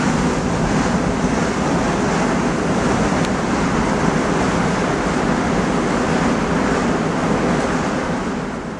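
Flames on a fire costume burning with a steady rushing sound, fading out near the end.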